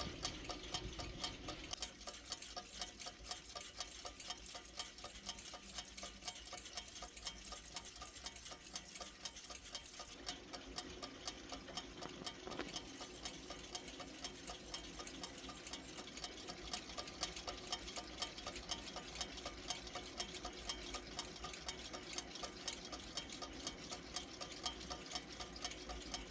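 Trenkle mechanical wind-up alarm clock ticking: a rapid, even train of light ticks from its escapement, held steady throughout.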